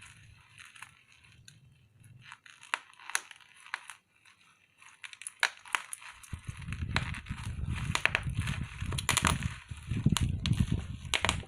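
Packaging crinkling and crackling as it is handled, with scattered sharp clicks. From about halfway through, close handling rumble joins in and it grows louder.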